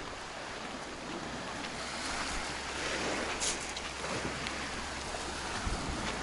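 Black Sea surf washing ashore: a steady, gently swelling hiss of waves, with some wind on the microphone.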